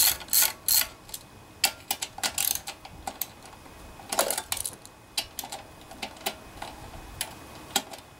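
Hand ratchet and socket clicking as the valve-cover bolts are backed out: a quick run of sharp clicks at first, then scattered, irregular light metal clicks with a louder one about four seconds in.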